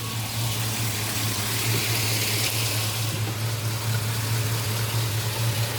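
GM 3.6-litre V6 idling steadily, a constant low hum with an even hiss over it, in a freshly installed replacement engine.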